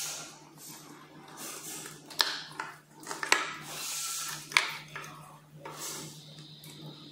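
Hands working the wiring inside an electric scooter's battery deck: rustling and handling of wires and an aluminium-cased module, with three sharp clicks of connectors and parts knocking together, over a low steady hum.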